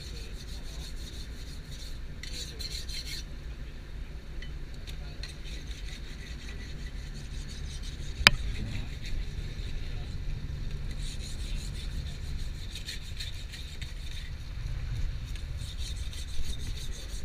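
Rasping strokes of a steel knife blade against stone and fish, coming in runs of quick repeated strokes, over a steady low rumble. A single sharp click about eight seconds in is the loudest sound.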